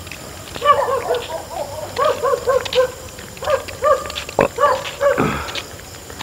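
A dog barking in quick runs of short, high yelping barks, several bursts over about five seconds, with a single sharp click about four seconds in.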